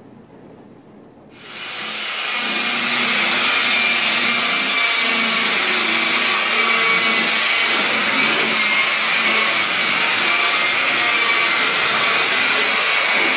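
Small handheld polisher with a foam pad starting up about a second in, then running steadily with a loud whirring hiss as it buffs the car door's paint.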